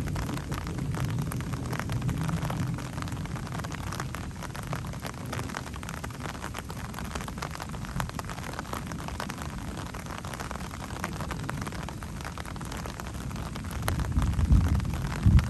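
Steady rain hiss with fine pattering drops, under the low rumble of thunder that dies away over the first few seconds. Near the end a louder thunderclap breaks in and rolls on as rumbling.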